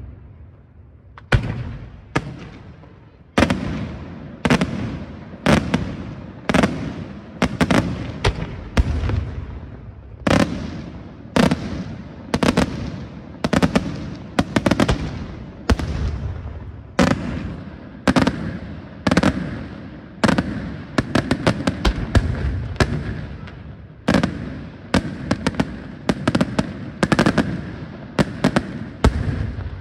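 Daytime aerial firework shells bursting in a steady sequence of sharp bangs, each trailing off in an echo. They come roughly one a second from about a second in, with quicker clusters of rapid reports about two-thirds of the way through and again near the end.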